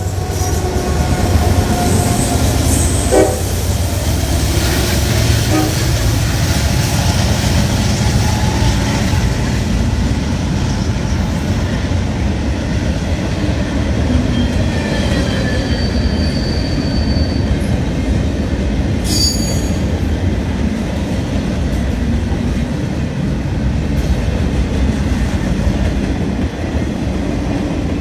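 Train rolling past, a steady heavy rumble of wheels and cars, with a brief high wheel squeal a little past the middle.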